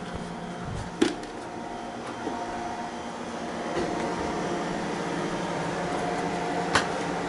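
Carrier air-conditioning unit running steadily, a hum with a few held tones that grows a little louder about four seconds in. Two short sharp clicks, about a second in and near the end.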